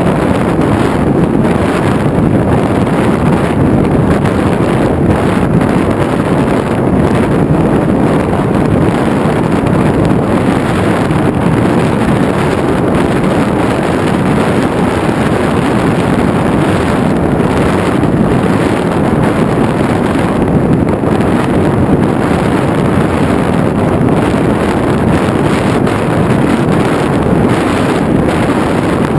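Steady, loud rush of wind buffeting the microphone of a camera on a flying FPV model aircraft, with no clear motor tone standing out.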